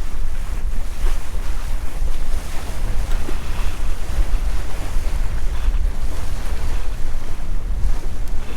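Wind buffeting the microphone with a heavy, fluttering rumble, over the steady rush of water along a sailing yacht's hull under sail.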